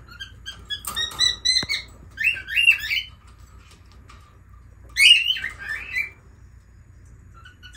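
Lovebird chirping in short, shrill, warbling bursts, about a second in and again around five seconds.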